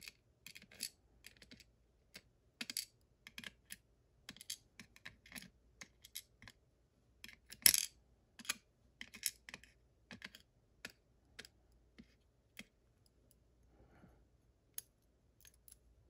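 Small clicks and taps of steel tweezers and lock pins against a metal pin tray and the lock cylinder, as the pin stacks are picked out one by one and laid in the tray. They come at irregular spacing, with one sharper click a little before the middle.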